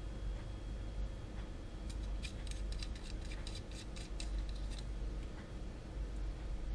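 A quick run of about fifteen light metallic clicks, about five a second, from the knurled metal tip collar and small metal parts of a battery-powered soldering iron being turned and fitted by hand. It starts about two seconds in and stops before the five-second mark.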